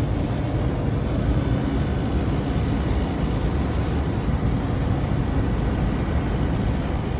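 Steady mechanical drone of commercial HVAC equipment running, heavy in the low end and unchanging throughout.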